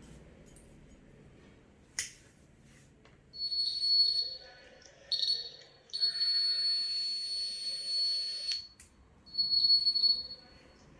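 Buzzer of a homemade gas leakage alarm sounding a steady high-pitched tone in about five bursts of uneven length, the alarm set off by its gas sensor detecting gas. A sharp click comes about two seconds in, before the buzzing starts.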